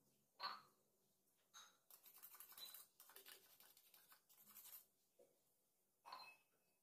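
Kitchen knife blade scraped back and forth over the unglazed rim of an upturned ceramic mug to sharpen it: a run of rapid scraping strokes lasting about three seconds. A single knock comes about half a second in and another near the end.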